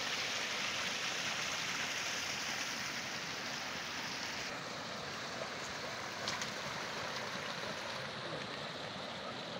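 Mountain stream rushing over stones: a steady wash of water noise, easing a little about halfway through, with a couple of faint knocks a little after the middle.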